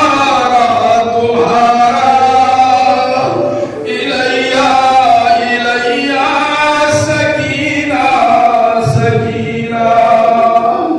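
Men chanting a noha, a Shia mourning lament, unaccompanied: a lead reciter's voice holding long notes with other male voices joining in chorus.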